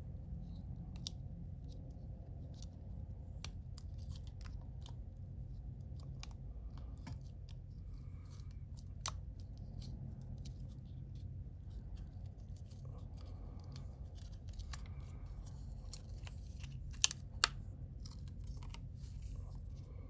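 Small scattered clicks and taps of small parts and tools being handled, with two sharper clicks about three-quarters of the way through, over a steady low hum.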